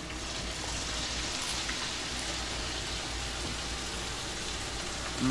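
Onion pyaji (pakoras) deep-frying in a pan of hot oil, sizzling with a steady hiss.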